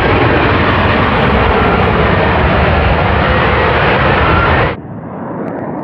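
F-35B Lightning II's F135 jet engine, a loud steady roar with a faint whine. It cuts off abruptly near the end, giving way to a quieter, duller jet roar.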